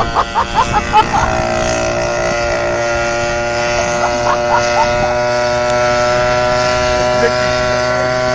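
Small petrol engine of a motorised beer crate running at a steady speed: an even drone that holds one pitch throughout.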